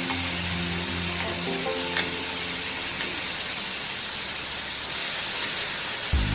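Pieces of masala-marinated fish sizzling steadily as they fry in hot oil, with background music playing held low notes through the first half.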